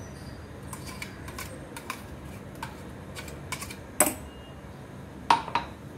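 A spoon scraping and tapping coconut paste out of a steel mixer-grinder jar into a steel bowl: scattered light metal clicks, with two louder clinks about four and five seconds in.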